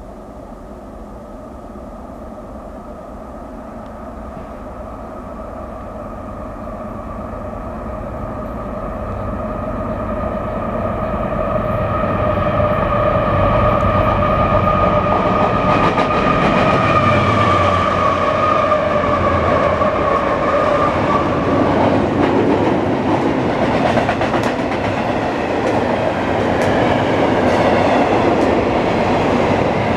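Westbound CSX intermodal freight headed by four GE diesel-electric locomotives approaching and growing steadily louder, with a steady hum over the engine noise. Past the middle the locomotives go by and the hum drops away. Then the double-stack container cars roll past with a clickety-clack of wheels over rail joints.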